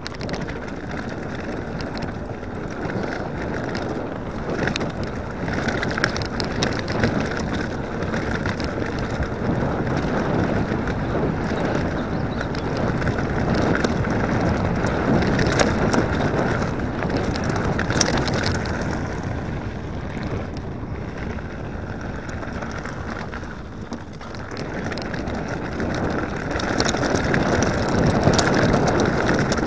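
Specialized Enduro mountain bike riding fast down a rough dirt trail: wind rushing over the microphone mixed with tyre rumble, with occasional sharp knocks as the bike hits bumps. It grows louder near the end.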